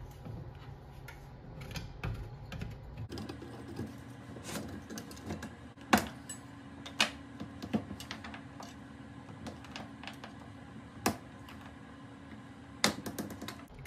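A bar of Castile soap being rubbed across a metal box grater, a quick scraping rasp, for the first few seconds. After that, a kitchen knife cuts the soap into chunks, with a few sharp separate knocks as the blade hits the glass stovetop, the loudest about six seconds in.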